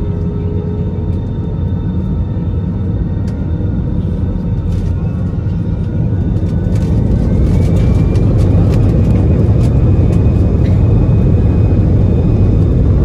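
Cabin sound of an Airbus A320-216's CFM56-5B engines: a steady rumble, then about seven seconds in a whine rises in pitch and the rumble grows louder as the engines spool up to takeoff thrust. A few faint rattles and clicks come from the cabin.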